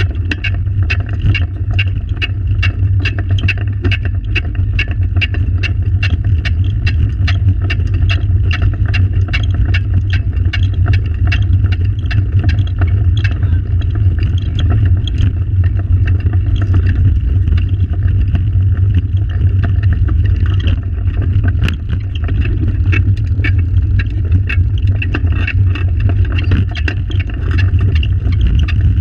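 Pedal go-kart rolling over tarmac: a steady, loud low rumble from the wheels and frame, with quick clicking and rattling throughout.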